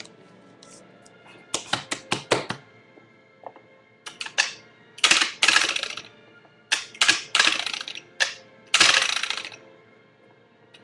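Fingerboard tricks on a small bench obstacle: quick clacks of the little board's tail and wheels hitting the bench top in several bursts. There are a few longer scrapes, about five seconds in and again near the end.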